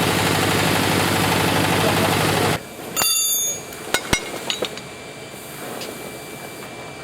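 GY-200-1A drilling rig's power unit running with a steady drone, cutting off abruptly about two and a half seconds in. Then a ringing metallic clank and a few sharp knocks of steel.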